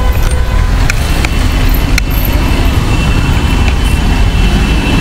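Street traffic noise: a steady low rumble of passing road vehicles, with a few short clicks in the first two seconds and a thin high whine through the second half.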